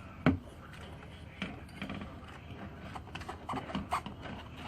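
A sharp click about a quarter of a second in, then scattered light clicks and metal clinks from the accelerator cable and pedal parts being handled and fitted.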